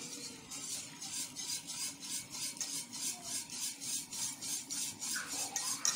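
Wire whisk beating béchamel, hot stock stirred into toasted flour and oil, against a stainless steel pot: a fast rhythmic scraping of about four to five strokes a second. The whisking works the flour into the liquid so it does not form lumps.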